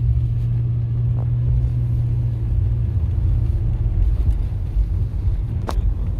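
Car driving on a city street, heard from inside the cabin: a steady low drone of engine and road noise that turns rougher about halfway through, with one sharp click near the end.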